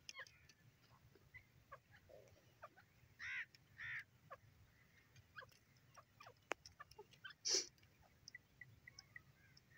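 Grey francolin giving two short, harsh call notes about three and four seconds in, then a louder single brief call about seven and a half seconds in, among faint scattered chirps.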